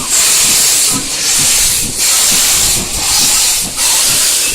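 Steam locomotive chuffing slowly, its exhaust beats coming as long hissing bursts about once a second.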